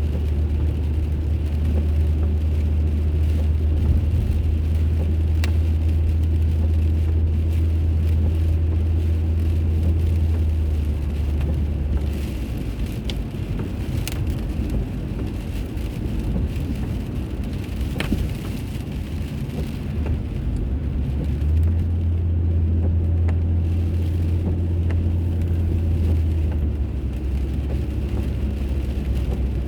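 A car driving on the road, heard from inside: a steady low drone of engine and road noise that eases off about twelve seconds in and comes back strongly near twenty-two seconds, with a few faint clicks.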